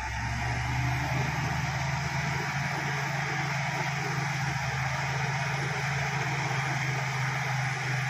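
Crawler bulldozer's diesel engine running steadily under load as the blade pushes loose soil, a deep even hum under broad mechanical noise.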